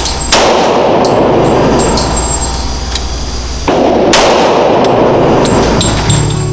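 Diamondback AM2 9mm pistol fired on an indoor range: two loud reports about four seconds apart. Each is followed by a few seconds of harsh, overloaded noise, and the first of these cuts off abruptly.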